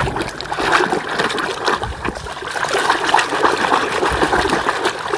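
Water trickling and splashing as a dirty toy vehicle is rinsed clean.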